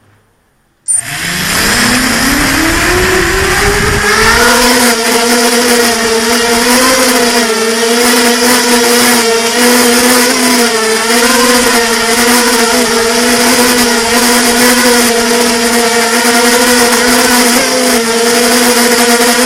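Robocat quadcopter's motors and propellers starting suddenly about a second in, rising in pitch over the next few seconds, then a steady loud whine that wavers up and down slightly as the throttle changes.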